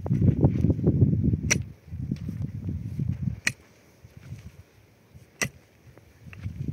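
A long-handled pick striking rocky soil: three sharp strikes about two seconds apart, with rough low noise of churned earth between the first ones.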